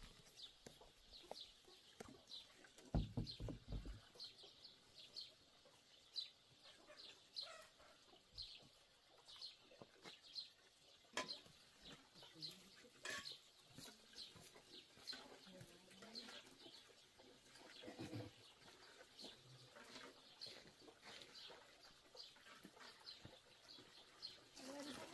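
A bird gives short high chirps over and over, about two a second, in a quiet farmyard. A few low calls and knocks come in between.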